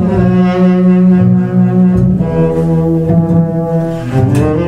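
Saxophone playing long held melody notes over a double bass line, the notes changing pitch about two seconds in and again near the end.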